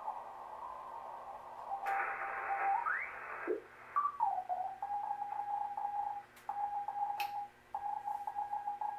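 Receiver audio from a Drake TR-4CW ham transceiver being tuned across a band. Band hiss comes first, then a whistle glides up and back down as the dial passes a signal. From about four seconds in, a Morse code (CW) signal is heard as a keyed tone of steady pitch.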